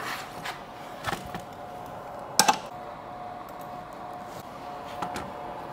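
Scattered knocks and clicks of objects being handled and set down, the loudest about two and a half seconds in, over a steady faint tone.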